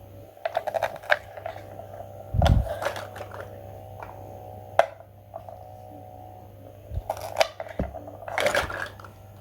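Irregular sharp clicks and knocks, in small clusters, over a steady hum.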